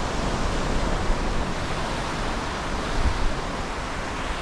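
Ocean surf breaking and washing up the beach as a steady rushing noise, with wind rumbling on the microphone.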